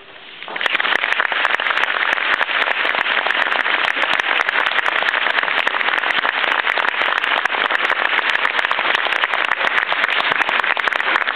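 Audience applauding, a steady dense clapping that starts about half a second in as the last piano chord fades.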